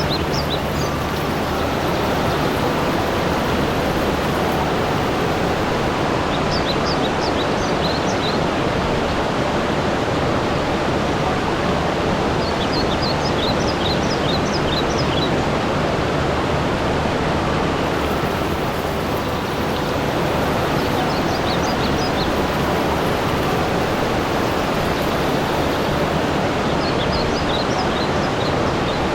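Steady rushing water, with a small bird singing short bursts of high chirps every five to seven seconds.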